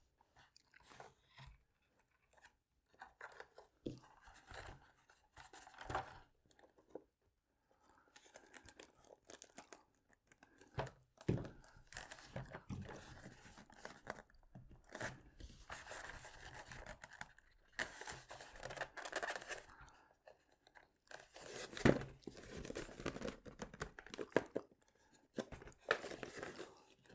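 Foam RC wing halves being handled and pressed together by hand at a contact-cemented seam: scattered scuffs, creaks and crackles of foam, with a few sharp knocks against the tabletop.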